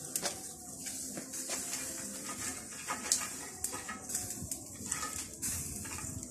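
Scattered light knocks and scrapes of a long wooden pole worked among the embers and against the spit of a brick roasting oven, over a steady low hum.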